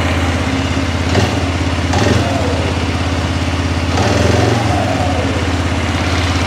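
2006 Arctic Cat 400 ATV's single-cylinder four-stroke engine idling steadily on a slightly raised idle, running again with spark restored by a new flywheel rotor. It briefly gets louder about a second in, at two seconds, and again around four seconds.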